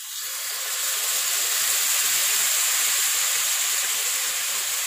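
Marinated pork chop sizzling loudly in hot oil in a frying pan, starting abruptly as the meat goes in and swelling over the first second before holding steady.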